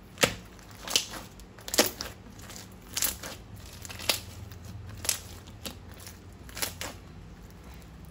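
Sharp crackling crunches from slime-making materials being handled, eight in all, roughly one a second, the loudest in the first two seconds.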